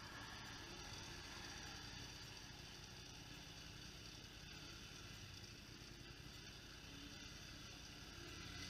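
Faint, steady hum of ATV engines running, with no revving or sudden sounds.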